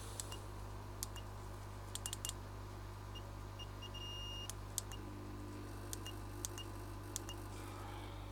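Steady hum of a hot air rework station blowing on the phone board during IC reflow. Over it come scattered light clicks and a series of short high beeps, one of them held longer about halfway through.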